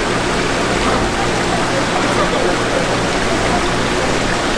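Water pouring and splashing steadily into live-seafood tanks from their circulation pipes, with a low steady hum underneath.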